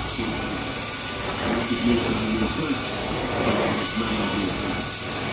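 Carpet-cleaning extraction wand drawn across a shag area rug, its vacuum pulling air and water through the pile with a steady rushing hiss.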